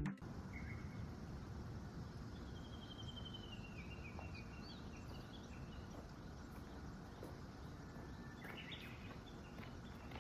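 Faint outdoor ambience: a steady low background hiss with small birds calling now and then. About two seconds in there is a quick falling trill, and short chirps come near the end.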